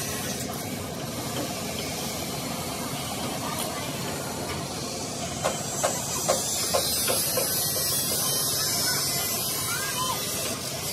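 Steady hissing noise, growing stronger in the second half, with a run of about six light knocks that ring briefly, about halfway through.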